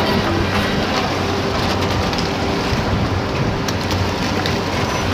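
Steady rushing and splashing of choppy sea water beside a boat, with a low steady engine hum underneath.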